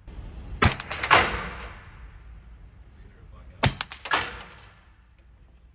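Two suppressed rifle shots about three seconds apart, fired through a Dead Air Sandman S suppressor. Each is a sharp report with a short, quick follow-on crack and a trailing echo.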